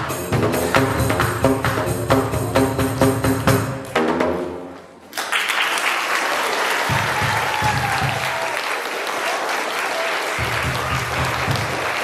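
A home-made instrument of plastic drain pipes cut to different lengths, slapped on their open ends with flip-flops, plays a quick run of pitched, booming notes that ends about four seconds in. After a short pause, an audience of children applauds.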